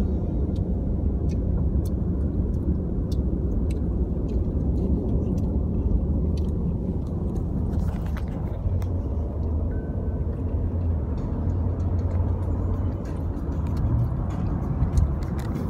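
Steady low rumble of road and engine noise heard inside a moving car's cabin, with a few faint ticks scattered through it.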